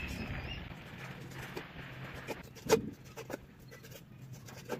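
Cleaver slicing fish fillet on a wooden cutting board, the blade knocking against the board a few times, the loudest knock a little past halfway.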